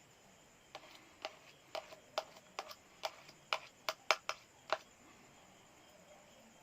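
A run of about a dozen light, sharp clicks or taps, irregularly spaced over some four seconds and louder toward the end.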